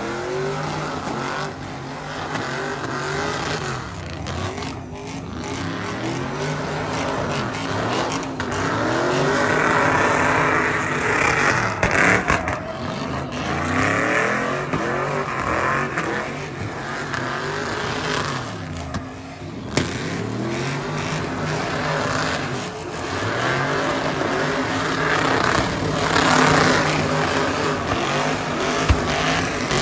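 Chevrolet pickup truck engines revving hard, rising and falling again and again as the trucks spin donuts, over the hiss and screech of rear tires spinning on the asphalt in a burnout.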